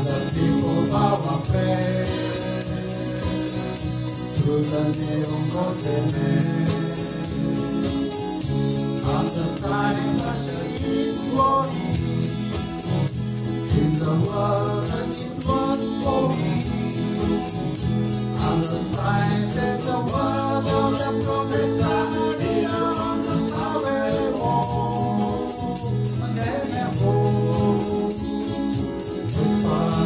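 Live acoustic folk-pop performance: two acoustic guitars strummed, with voices singing in harmony over them and a tambourine shaken in a steady, even beat.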